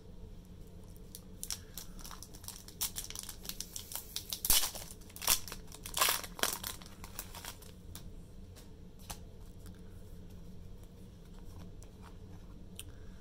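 Foil booster pack wrapper crinkling and being torn open, densest and loudest between about two and seven seconds in, then only a few faint ticks.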